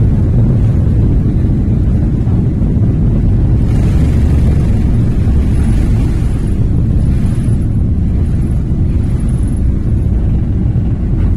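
Airliner cabin noise at takeoff: the engines at takeoff power make a loud, steady, deep rumble, heard from a window seat over the wing as the plane rolls down the runway and lifts off into a climb. A faint high whine comes and goes midway.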